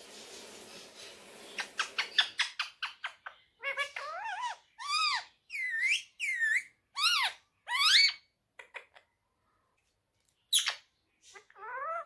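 Indian ringneck parakeet calling: a rapid run of clicks, then a string of loud, arching whistled squawks, a pause, and one more sharp call and a rising call near the end. A rustling noise fills the first two seconds.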